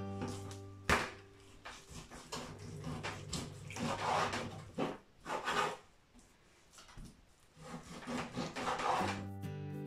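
Kitchen knife sawing through raw pork neck on a wooden cutting board: several drawn-out slicing strokes, with a sharp knock of the blade against the board about a second in.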